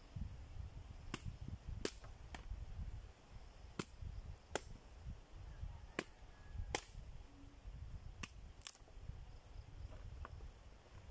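Dead branches snapped by hand, about nine sharp cracks at irregular intervals over a low rumble.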